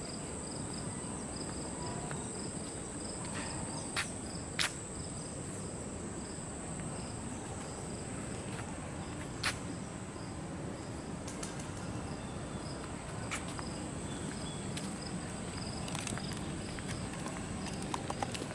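Insects chirping: a steady high-pitched trill alongside a second, lower chirp that pulses a few times a second, with a few scattered light clicks.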